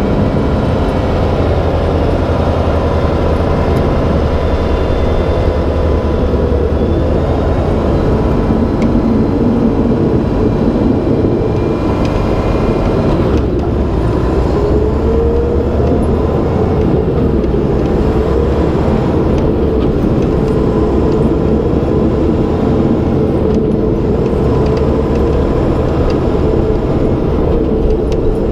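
Mack Granite plow truck's diesel engine running steadily under way, heard from outside the cab beside the wing plow as it pushes snow along the road. A constant loud drone, with a few tones in it drifting slightly in pitch.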